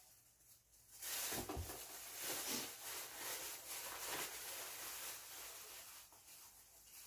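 Close-up handling noise: irregular rustling and rubbing with a few soft low knocks, as the bungeoppang are picked up for eating.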